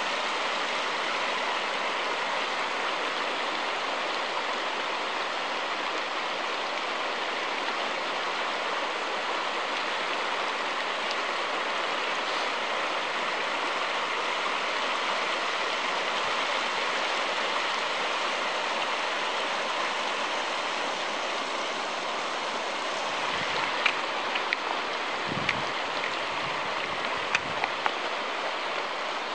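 Shallow mountain river rushing steadily over cobbles and around boulders. A few short sharp clicks and low knocks come near the end.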